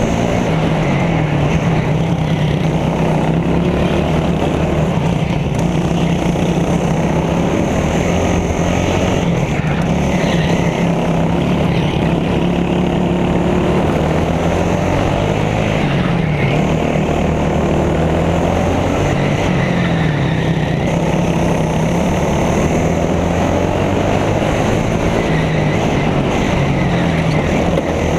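Go-kart engine heard from onboard, running hard down the straights and easing off into the corners, its pitch rising and falling again and again.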